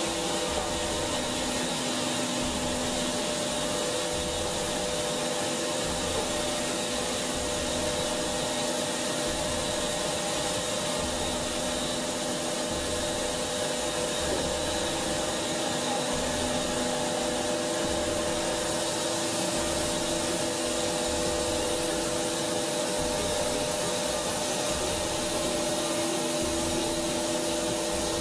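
ANGER HCP 8 five-axis high-speed machining center running: a steady, loud whir with several steady hum tones over it.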